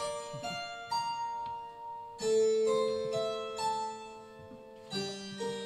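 Electric stage keyboard playing the opening of a slow song live, with held chords and single notes and a new chord struck every second or so.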